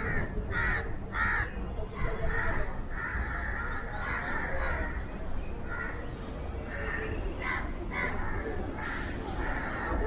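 Crows cawing repeatedly, many harsh calls overlapping one after another, over a steady low rumble of background noise.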